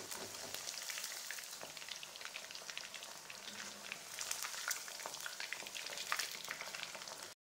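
Batter-coated chicken pieces deep-frying in hot oil in a kadai: a steady sizzle full of small crackles. It cuts off suddenly near the end.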